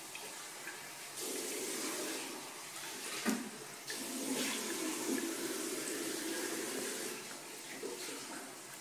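A thin stream of water runs steadily from a bathroom tap into a ceramic sink, with one brief louder noise a little over three seconds in.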